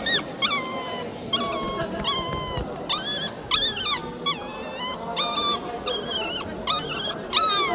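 Dog whining: a steady run of about a dozen short, high-pitched whines, each with a quick pitch bend, roughly one every half second.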